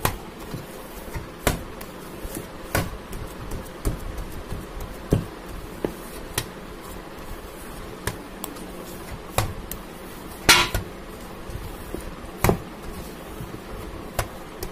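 Hands kneading soft yeast dough in a stainless steel bowl: irregular knocks and thumps as the dough is pressed and pushed against the bowl, roughly one a second, the loudest about ten seconds in.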